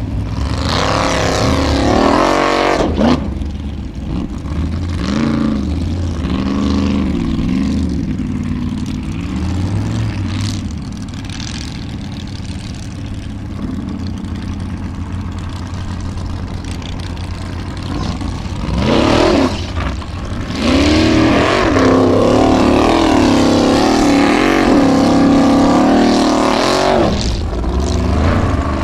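Formula Offroad buggy's engine revving hard and repeatedly under load, its pitch rising and falling as the throttle is worked. The loudest bursts come at the start and through the last third.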